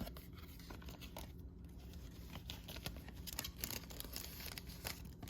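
Baseball cards and their packaging being handled: scattered light rustling, sliding and clicking, over a steady low hum.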